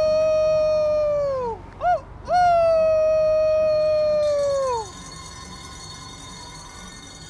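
A man howling through cupped hands: a long held howl that drops away at its end, a short yip, then a second long howl that also falls off, about five seconds in.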